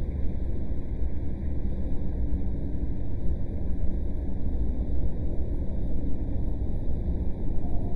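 Steady low rumbling ambience: a dark, noisy drone with no distinct events.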